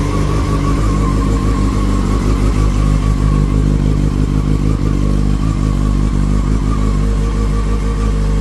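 Yamaha FZ6-N's 600 cc inline-four engine running steadily at idle after a cold start, its level swelling a little in the middle.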